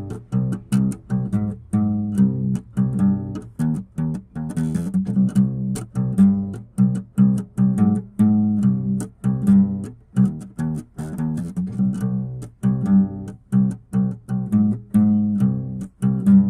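Instrumental background music with quick, evenly paced plucked string notes over a steady low bass.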